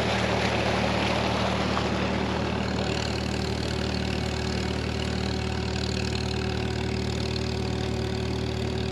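Farmall M tractor's four-cylinder engine running at a steady speed, belt-driving a flood-water pump, with water gushing from the pump's outlet pipe into the creek.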